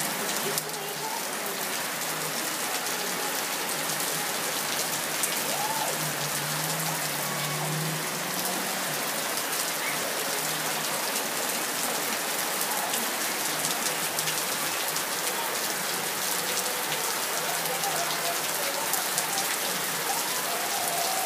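Steady rain falling on wet concrete and puddles: an even hiss of drops, speckled with small individual splashes.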